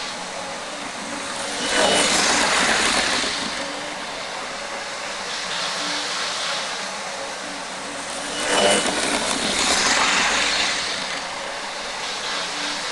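Hornby model trains running on a DC layout: a steady whirr of electric motors and wheels rolling on the track, which swells louder twice as a train passes close by.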